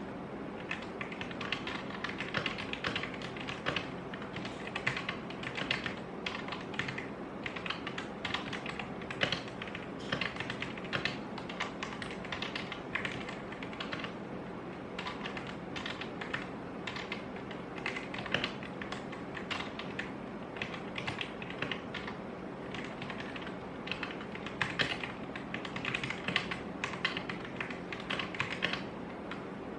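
Rexus Daxa M71 Pro mechanical keyboard with stock Gateron Yellow linear switches being typed on continuously, a fast, uneven run of keystrokes, with a steady low hum underneath.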